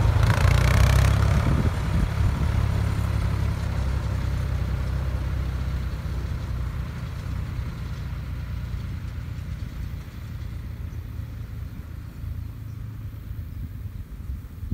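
Diesel engines of two tractors, a Steyr 8055 and a Fiat 540 DT ahead of it, running as they drive away. The low engine sound is loudest at the start and fades steadily as they pull into the distance.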